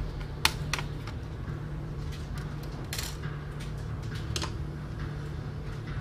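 Sharp plastic clicks and snaps as the bottom access cover of a Fujitsu Lifebook AH552 laptop is pried loose with a screwdriver and lifted off. The loudest click comes about half a second in, with another cluster around three seconds, over a steady low hum.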